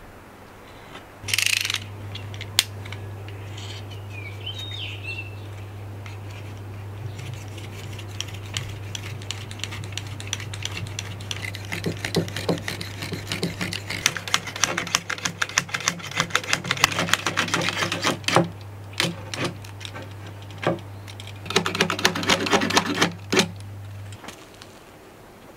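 A knife blade scraping and cutting along the edge of a wooden bow stave, trimming off overhanging fibreglass mesh tape in a long run of rapid crackly ticks and scratches, with a second shorter burst of cutting near the end. A short noisy burst comes about a second and a half in, and a steady low hum lies under most of it.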